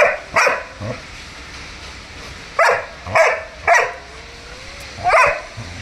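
German Shepherd barking: two barks at the start, a pause, then three quick barks about half a second apart and one more near the end.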